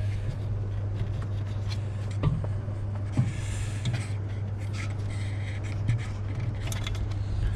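Plastic parts of a car headlight housing scraping and clicking as a cover is pushed and slid aside to reach the turn-signal bulb. A steady low hum runs underneath.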